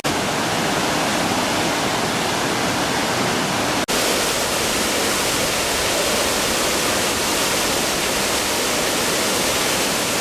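Kuhflucht waterfall rushing: a steady, loud roar of falling water, with a momentary break about four seconds in.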